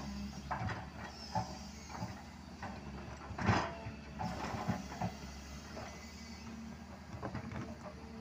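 Doosan DX225LCA excavator's diesel engine running steadily while its bucket scrapes and knocks against the trench soil, with a louder scrape about three and a half seconds in.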